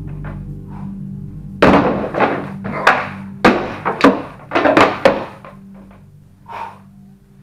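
A rapid flurry of about seven sword blows landing on round shields, two or so a second, with one softer blow near the end, over a steady low drone.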